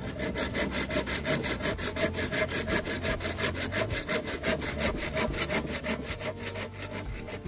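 Hand saw cutting through a wooden plank in rapid, even back-and-forth strokes.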